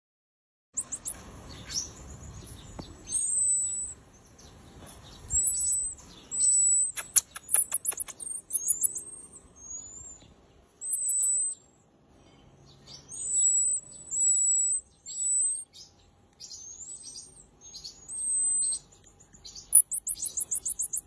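Baby marmosets calling: a string of thin, very high whistles, many curving up and then down in pitch, with bursts of rapid trilling chatter near the start and again near the end.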